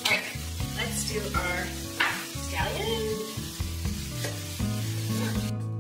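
Ground chicken sizzling as it fries in a pan, with several scraping strokes about a second apart, over background music. The sizzle drops away near the end, leaving the music.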